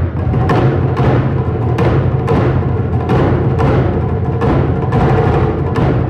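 Japanese taiko ensemble drumming: large barrel drums and smaller rope-tensioned drums struck together with sticks, with strong accented hits about twice a second over a dense, continuous beat.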